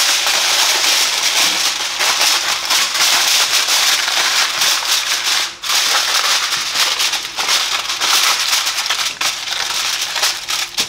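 Aluminium foil crinkling and crackling as it is pulled over and pressed around a small oven tray, with a short pause about halfway through.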